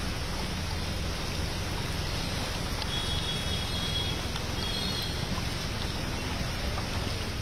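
Steady rush of heavy rain and floodwater on a waterlogged street, with a low rumble of vehicles driving through the water. Faint high thin tones come and go a few seconds in.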